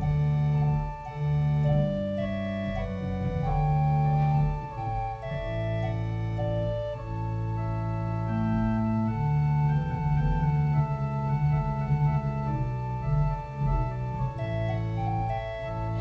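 Organ music: slow, sustained chords that change every second or two over held low notes.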